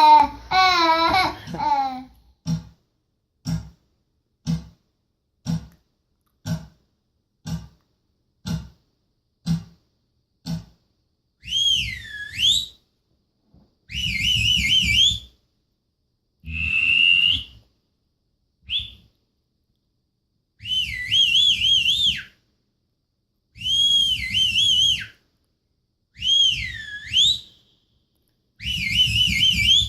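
Played-back sound effects: a warbling tone fades out, then about nine single knocks roughly a second apart, then a run of whistled up-and-down pitch glides in short phrases of one to two seconds.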